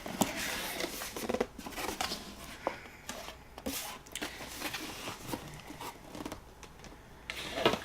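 A cardboard subscription box being opened and its packaging handled: a run of irregular rustles, scrapes and clicks.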